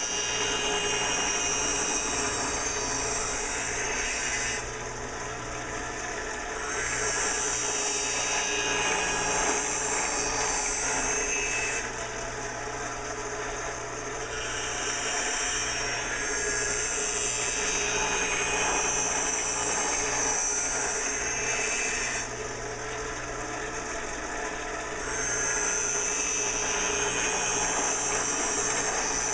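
Skate sharpening machine's grinding wheel running steadily while a STEP BlackSteel skate runner is drawn along it in several long passes. Each pass brings a loud, hissing grind that drops back to the wheel's hum between passes. The passes grind off the unground factory edge to set a 95/50 flat-bottom V hollow.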